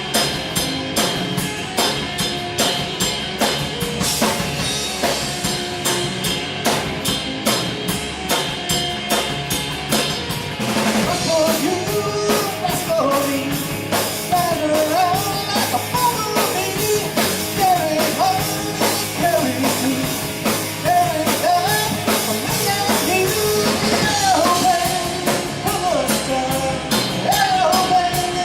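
Live rock band playing a song with drum kit and amplified instruments, the drums keeping a steady beat. About a third of the way in, a bending, wavering lead melody comes in over the band.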